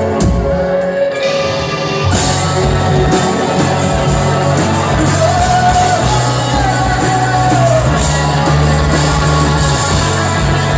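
Live rock band playing: electric guitars, bass, drums and a lead vocal. The full band, cymbals included, comes in hard about two seconds in after a sparser passage.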